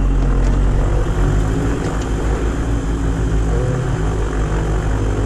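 Diamond DA42's diesel aircraft engine and propeller idling after start, heard from inside the cockpit as a loud, steady low drone.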